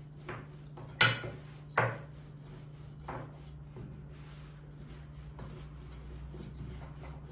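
A long thin wooden rolling pin (oklava) rolling out soft yeast dough on a floured tabletop: a soft rubbing roll, with a few sharp wooden knocks in the first three seconds.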